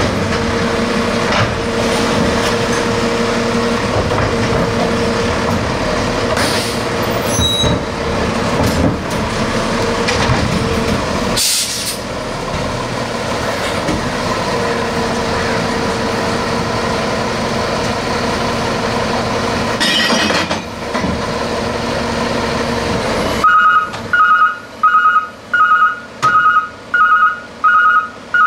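The diesel engine of a Peterbilt 320 recycling truck runs raised to drive the Labrie automated side-loader arm's hydraulics. A steady whine comes and goes as the arm lifts and tips carts, with a short hiss about midway. In the last few seconds a two-tone warning beeper sounds about once a second.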